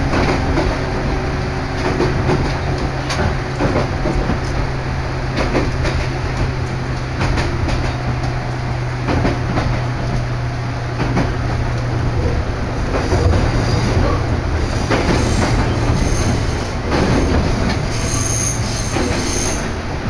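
Tsurumi Line electric train running, heard from inside the carriage: steady running noise and low hum, with the clack of wheels over rail joints. Thin high wheel squeals come in the last few seconds.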